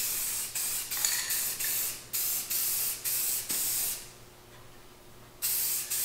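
Aerosol spray can of clear coat hissing in short, quick passes, about two a second. The passes stop for about a second and a half about two-thirds of the way in, then resume.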